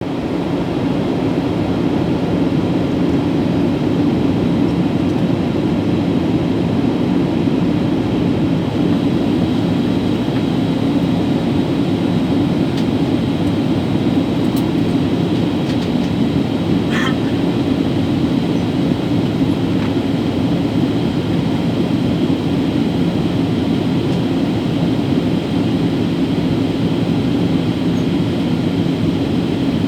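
Steady cabin noise of a Boeing 737 in flight: an even engine and airflow drone with a low hum.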